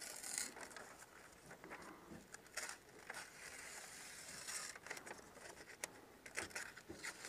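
Faint slicing and scratching of a utility knife cutting Tyvek house wrap, with crinkling of the cut strip as it is pulled away.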